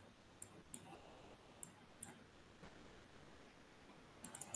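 Faint computer mouse clicks: a few single clicks spaced apart, then a quick run of about four near the end.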